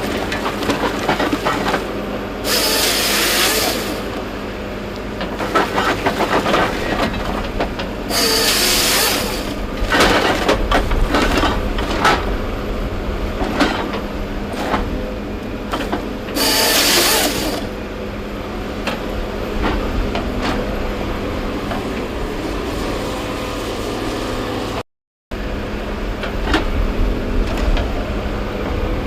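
Heavy logging machine's diesel engine running steadily, with three short bursts of hissing and scattered knocks and clatter of the machine working.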